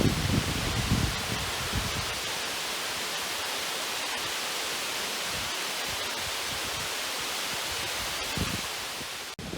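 Steady rushing of water spilling through a dam. There is low wind buffeting on the microphone at the start and again briefly near the end.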